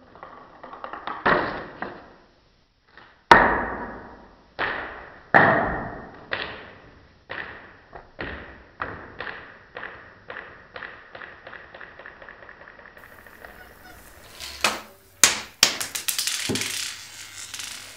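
A marble bouncing repeatedly on a table, slowed down: each hit rings out long and deep, and the bounces come quicker and fainter as it settles. A few sharp knocks follow near the end.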